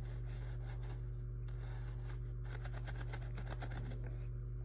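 A brush scrubbed back and forth by hand on wet carpet pile, working at stuck slime, with a quick run of strokes about halfway through. A steady low hum runs underneath.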